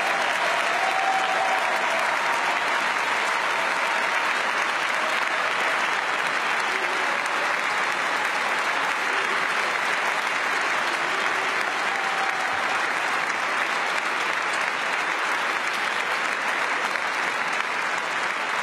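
Audience applauding: a long, steady ovation of many hands clapping that fades a little near the end.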